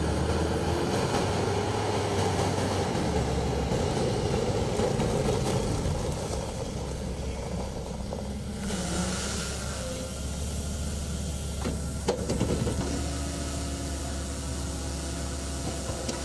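Engine of an armoured 4x4 vehicle running as it drives, a steady low rumble, with a few sharp knocks about twelve seconds in.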